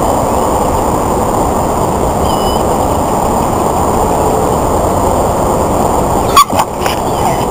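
Steady loud wind rumble on the microphone, with a brief sharp loud sound about six and a half seconds in.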